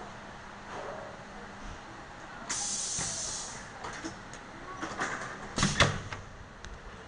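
High-frequency plastic welding machine cycling: a burst of compressed-air hiss about two and a half seconds in that lasts about a second, then a cluster of mechanical clacks and knocks near the end, the loudest of them just before six seconds. A faint low hum runs underneath.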